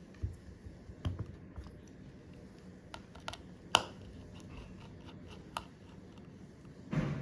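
Scattered small, sharp clicks and taps of phone parts and small tools being handled during a smartphone repair, the sharpest click about three and a half seconds in, with a brief scuff near the end.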